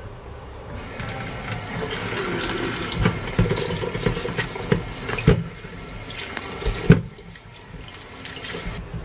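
Tap water running into a stainless-steel sink over lemons in an enamel colander, as the lemons are rinsed by hand. The water starts about a second in and stops just before the end, with a few sharp knocks as the lemons are handled in the colander.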